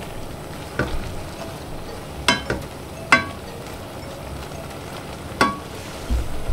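Wooden spoon stirring sliced carrots, peppers and onions in a saucepan, over a steady sizzle of the cooking liquid boiling down, with four sharp knocks of the spoon against the pot and a low thud near the end.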